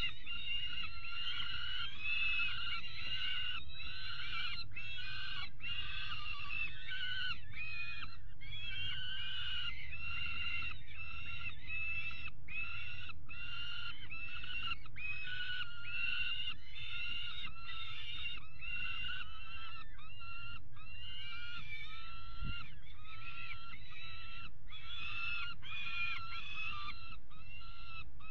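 Juvenile peregrine falcon food-begging: a continuous run of harsh, repeated calls, each rising then falling, with short gaps between them.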